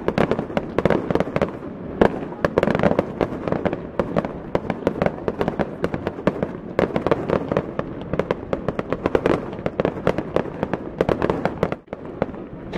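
Fireworks display going off: a dense, continuous barrage of bangs and crackles, with a brief lull near the end.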